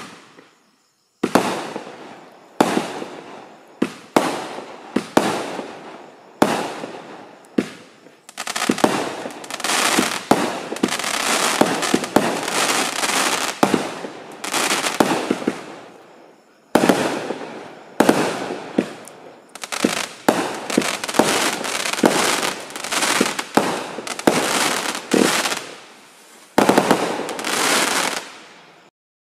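Bomb Squad 200-gram, 25-shot firework cake firing its shots one after another: loud sharp bangs, each with a fading tail. They come about one a second at first, then crowd into an almost unbroken barrage through the middle, and stop abruptly near the end.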